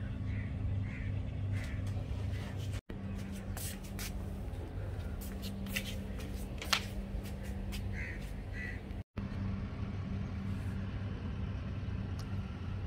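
Steady low hum with scattered light clicks, and two short high calls a little over eight seconds in.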